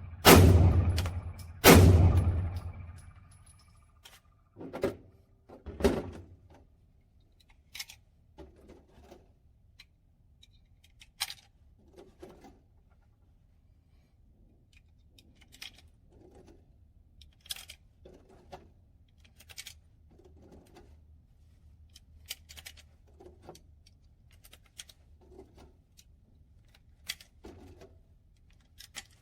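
Two shots from a Glock 43X 9 mm pistol about a second and a half apart near the start, each with a ringing tail, then a scatter of quieter knocks and clicks.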